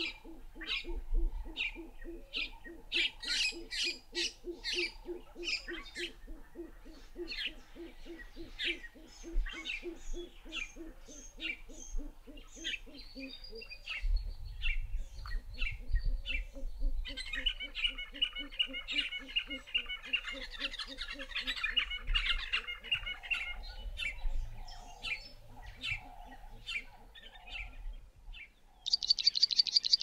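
Wild birds calling: many short chirps and whistles over a low, rapidly repeated hooting. About a second before the end, a black-chested prinia's loud, fast chipping song begins.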